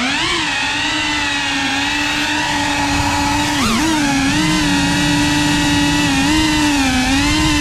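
Cinewhoop FPV drone's small motors and ducted propellers buzzing steadily in flight, the pitch dipping and rising sharply about three and a half seconds in and wavering gently elsewhere as the throttle changes.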